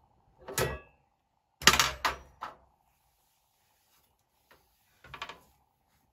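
Metal pan supports of a stove clattering as they are lifted and set back onto the cooktop: a knock about half a second in, a louder cluster of three clanks around two seconds, and another knock near the end.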